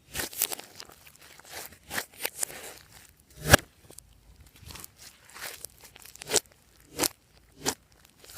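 Glossy slime being squeezed and stretched by hand, giving irregular sticky pops and crackles about one or two a second, the loudest about three and a half seconds in.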